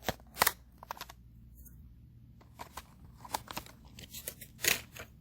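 Hands opening the packaging of an N-scale model locomotive: scattered clicks and short rustles of plastic and cardboard, the sharpest about half a second in and again near the end.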